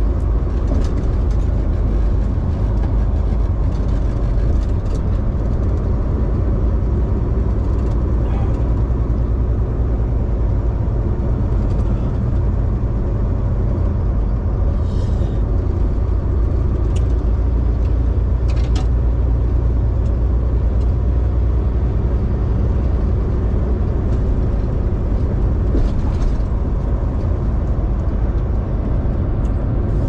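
Semi-truck driving on a highway at steady speed: a constant low rumble of engine and road noise, with a few faint ticks.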